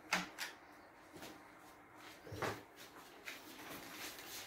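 Kitchenware being handled and set down: a few light knocks and clicks, the strongest about two and a half seconds in.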